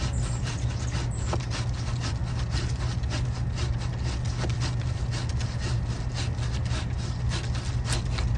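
Hand pruning saw cutting off a plum-branch stub, steady back-and-forth strokes through the wood at about three a second.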